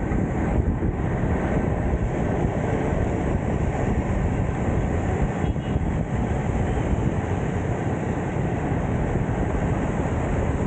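Steady rush of wind buffeting the microphone while riding a bicycle, a dense low rumble that never lets up.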